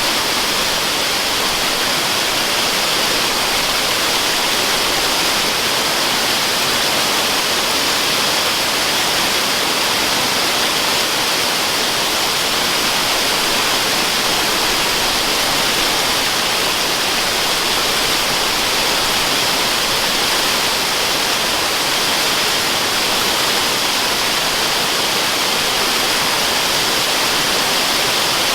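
Waterfall rushing in a steady, unbroken hiss, mostly in the upper range with little low rumble.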